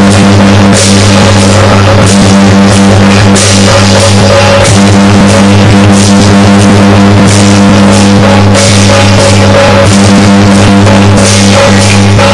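Loud, distorted music with pounding drums over a steady low drone.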